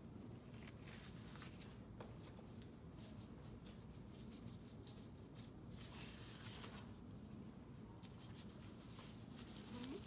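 Quiet room tone with a low hum and faint rustling of plastic exam gloves and a disposable gown being handled.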